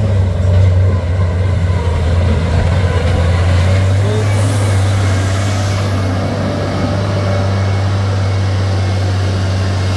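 Heavy vehicle's diesel engine running with a steady low drone, with a brief hiss about four seconds in.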